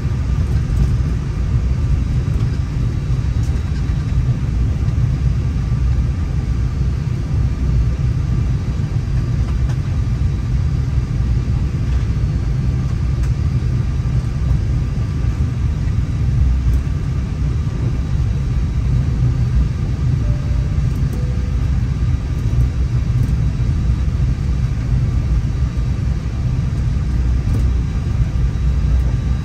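Steady low rumble of an Airbus A320 heard from inside the cockpit, with a faint steady high tone running over it.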